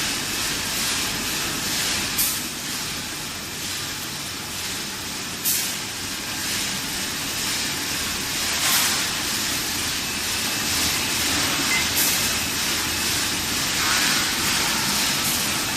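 Stainless steel pipe-making tube mill running: a steady mechanical hiss, with a short sharp noise about every three seconds.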